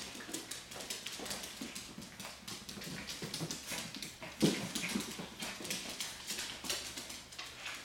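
Small dogs' claws clicking and scrabbling on a hardwood floor as they tussle over a stuffed toy: a quick, uneven patter of taps, with one louder sudden sound about four and a half seconds in.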